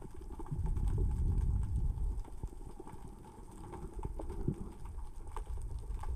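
Small rocks rolling and clicking against each other on the sea floor as the current and surge move them, heard underwater: a scatter of sharp clicks over a low surging rumble that eases around the middle and builds again.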